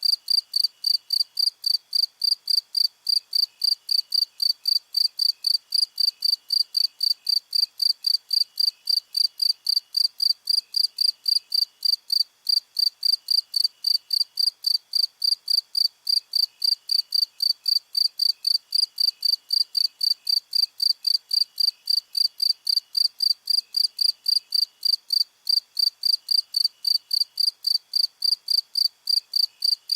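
Crickets chirping: one loud cricket with even, high-pitched chirps about three a second, and a fainter cricket behind it in short, broken runs.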